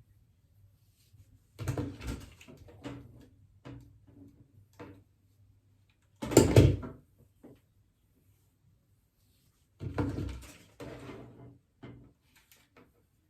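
Knocks and clunks from a ceramic deep hair waver being clamped and handled: three louder thumps about four seconds apart, the middle one the loudest, each followed by a few smaller clicks.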